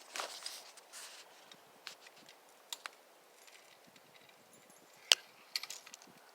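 Footsteps crunching through dry grass and brush, with scattered small clicks and one sharp crack about five seconds in.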